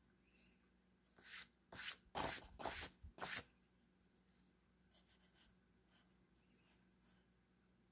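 Pencil scratching on paper: five loud, quick strokes between about one and three and a half seconds in, then a few fainter, quicker strokes from about five seconds in as initials are signed.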